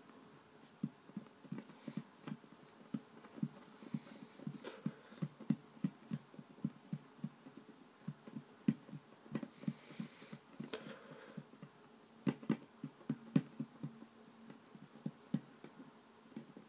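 Fingertips pressing and patting soft play dough flat against a tabletop: soft, dull thumps, irregular at a few a second.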